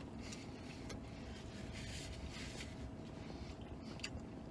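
Quiet chewing of a mouthful of pretzel-bun burger over the low, steady hum of a car cabin, with a few soft mouth clicks about four seconds in.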